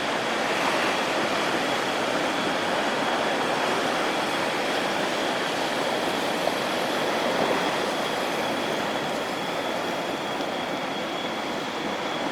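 Heavy ocean surf breaking, a steady rushing wash of whitewater, with a thin steady high tone alongside it.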